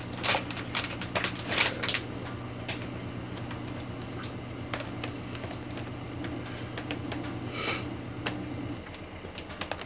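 Plastic epoxy dispenser pumps clicking and clacking as they are pressed to meter resin and hardener into a plastic mixing cup: a quick run of clicks in the first two seconds, scattered ones after, and another short run near the end. A steady low hum runs underneath and stops shortly before the end.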